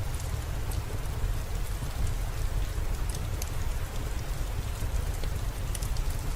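Steady rain falling: an even hiss over a low rumble, with scattered sharp ticks of drops.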